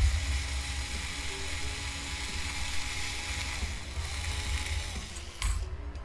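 Small cordless electric screwdriver running steadily for about five seconds as it turns out a screw in an Xbox Series X's internal assembly, stopping with a click near the end.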